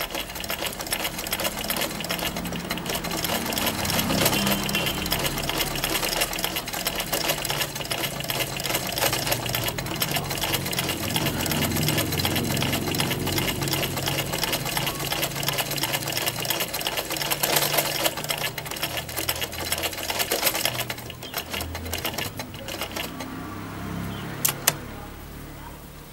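Old black domestic sewing machine stitching at a steady fast pace, a rapid even clatter of needle and feed, that slows and stops about 21 seconds in. Two sharp clicks follow near the end.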